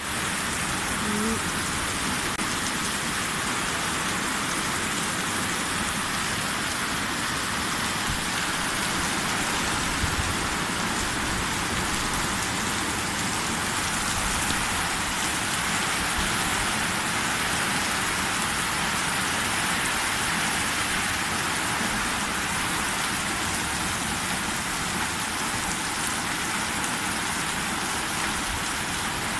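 Heavy rain falling steadily, a continuous even hiss.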